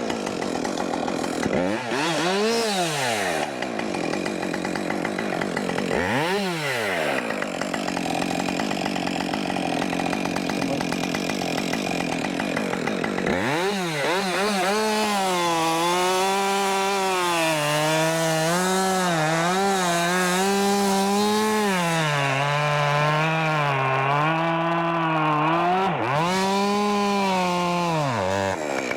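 Husqvarna 550 XP two-stroke chainsaw cutting oak, its engine speed dipping and climbing as the chain loads up in the wood. From about halfway through, the engine holds a steady, high working note that wavers slightly under load.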